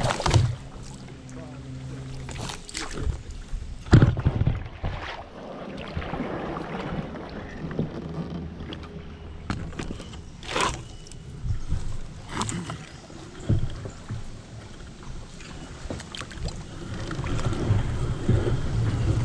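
Kayak paddle strokes and water splashing and dripping along the hull, broken by several sharp knocks.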